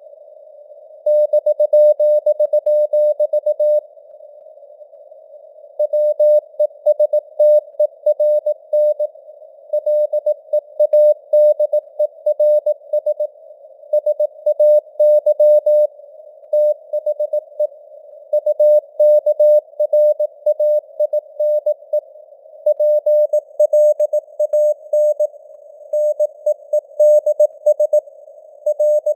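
Morse code (CW) sent at 18 words per minute as a single keyed tone of about 600 Hz, in quick dots and dashes grouped into words with short pauses between, over a faint hiss of simulated radio noise.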